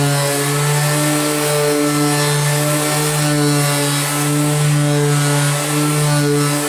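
Electric dual-action random orbital sander running steadily, a constant motor hum that wavers slightly in pitch as it is moved over the panel. It is flatting 400-grit across a guide-coated, primed car bootlid before painting.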